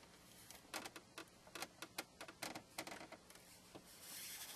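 Faint, irregular clicks and creaks of a plastic phone-dock base gripped in locking pliers and twisted against the soft adhesive tape that holds it to the dashboard. A brief rasping sound near the end comes as the tape gives way.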